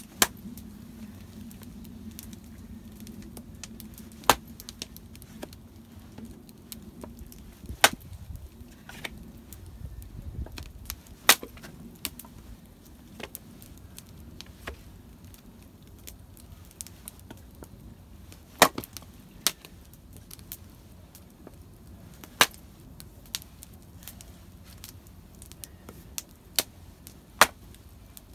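An axe chopping wood: single sharp strikes every few seconds, unevenly spaced, with fainter knocks between them.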